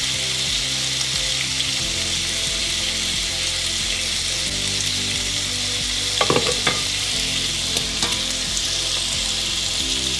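Bacon sizzling steadily in a frying pan, with a few short knocks of a utensil against the cooking pot about six seconds in.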